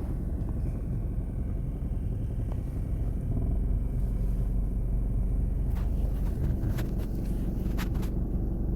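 Low, steady rumble of a car's engine and road noise heard from inside the moving car, with a few brief sharp clicks near the end.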